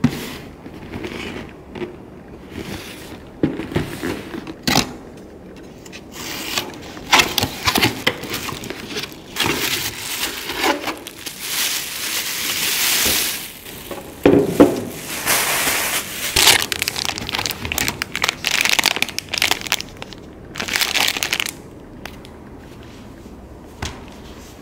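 Plastic packaging around a Brita water-filter jug rustling and crinkling in irregular bursts as it is unwrapped, along with the cardboard boxes being handled; the crinkling stops about three seconds before the end.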